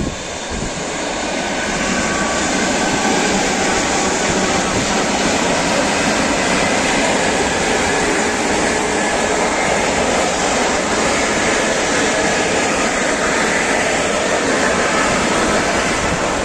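ED4M electric multiple-unit suburban train passing close by at speed: a steady rush of wheels on rail that builds over the first two seconds as it arrives and eases off slightly near the end as it goes away.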